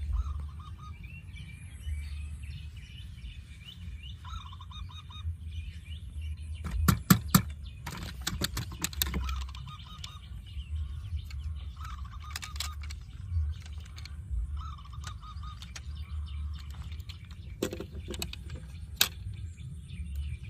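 Birds chirping in short repeated calls over a steady low rumble, with a run of sharp clicks about seven seconds in, the loudest sound, and a couple more near the end.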